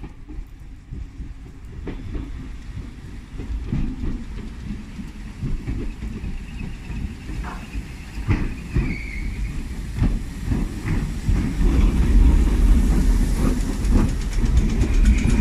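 Merseyrail Class 508 electric train arriving at a station platform: a low rumble that grows steadily louder as it draws near, with wheels clicking over the rail joints and a thin high squeal as it slows.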